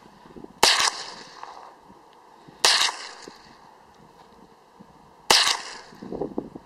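Three shots from a Ruger 10/22 semi-automatic .22 LR carbine, spaced about two and two and a half seconds apart. Each is a sharp crack followed by a short fading echo.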